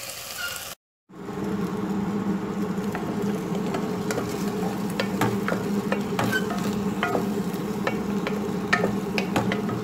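Cubed chicken sizzling in hot oil in a steel pot, with a wooden spoon stirring and scraping against the pot in many short clicks. The sound drops out briefly about a second in.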